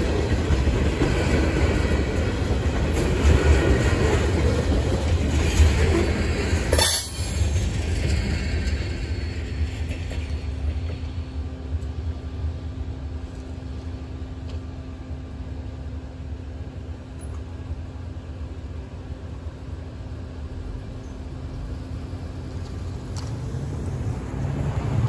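Freight train tank cars rolling past over a grade crossing, wheels clattering on the rails. The rumble ends about seven seconds in with a brief sharp burst as the last car passes, leaving a steady low hum. Road vehicles drive over the crossing near the end.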